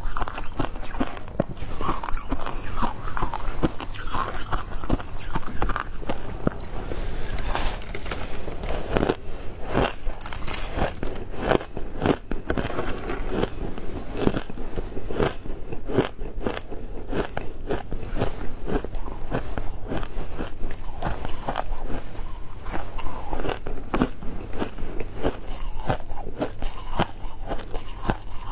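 Shaved ice being crunched and chewed close to a clip-on microphone: a continuous run of crisp crackling bites and crunches.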